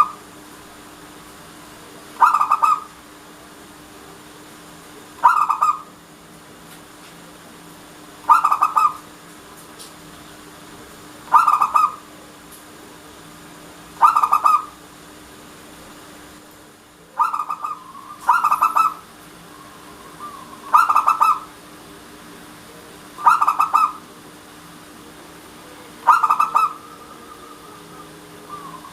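Zebra dove (perkutut) cooing: a short burry phrase of coos repeated about every three seconds, two coming close together near the middle.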